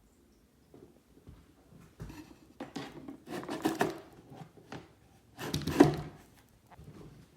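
Clattering and knocking of a metal rolling storage cart with a wooden top and drawer as it is handled, in two busy stretches, the louder clatter about six seconds in.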